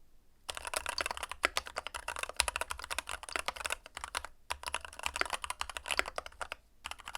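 Keychron K2 Pro mechanical keyboard being typed on in fast runs of keystrokes, broken by short pauses just after the start, around four seconds in and near the end. It has a rounded 'kotokoto' clack, which comes from resonance in the larger case and the deeper keycaps.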